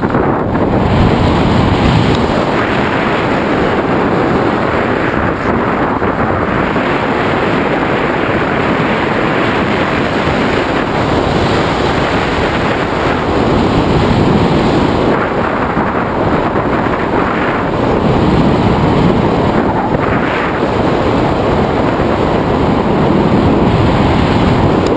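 Airflow buffeting the microphone of a camera mounted on a tandem hang glider in flight: loud, steady wind rush that swells and eases every few seconds.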